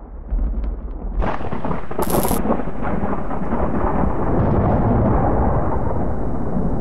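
Logo-intro sound effect of rolling, thunder-like rumble: a crackling rumble that swells about a second in, with a brief hiss near two seconds, and then holds loud and steady.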